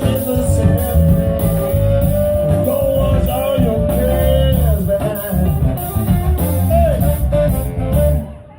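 Live blues band playing over bass and drums, with a lead line holding one long note for several seconds and bending it. The band drops out briefly near the end.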